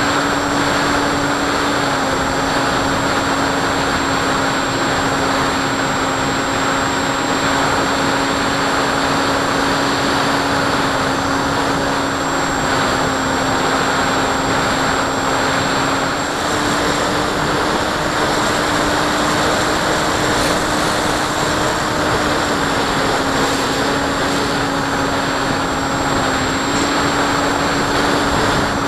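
Electric motor and pusher propeller of a Multiplex EasyStar 2 model glider in flight, a steady hum over rushing air from the onboard camera. The pitch steps slightly up and down a few times as the throttle changes.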